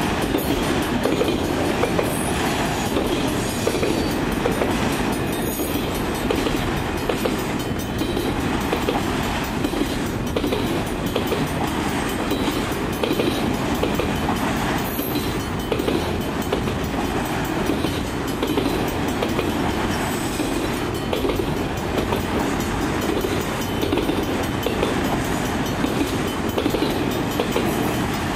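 Freight train of autorack cars rolling past: a steady, loud rumble and rattle of steel wheels on the rails, with small irregular clanks.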